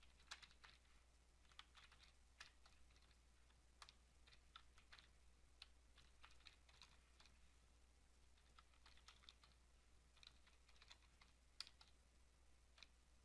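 Faint typing on a computer keyboard: irregular key clicks with short pauses between bursts.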